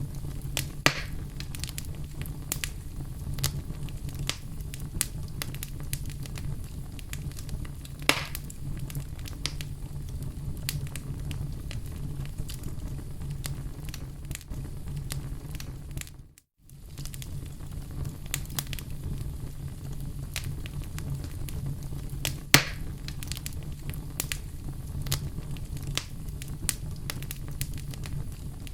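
Wood fire crackling, with frequent small clicks and a few louder pops over a steady low rumble. The sound cuts out briefly about halfway through, then resumes.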